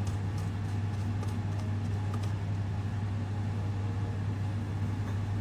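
A steady low hum that does not change, with a few faint clicks.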